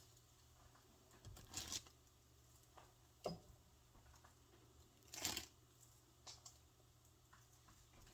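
A few short crinkles and rustles of disposable plastic gloves as gloved hands handle bagel dough, scattered through an otherwise quiet room.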